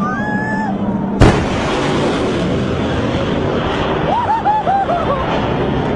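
Fighter jet blasting past low overhead: a sudden loud burst of jet noise about a second in, then a steady roar.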